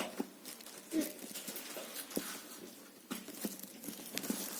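Light scattered clicks, taps and rustles of small phone parts being handled.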